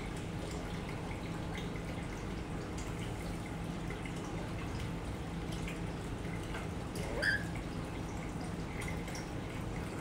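Aquarium filter water trickling and dripping steadily over a low pump hum. About seven seconds in, a black-capped lory gives one brief high squeak.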